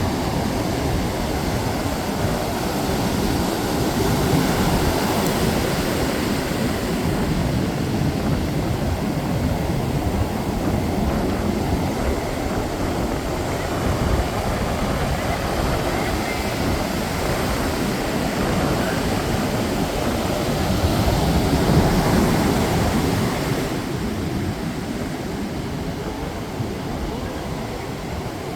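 Ocean surf rushing on the beach with wind on the microphone, a steady roar that swells about four seconds in and again near the end.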